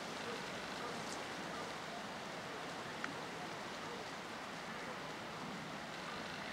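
Steady outdoor noise of wind and rippling lake water, with one short faint click about three seconds in.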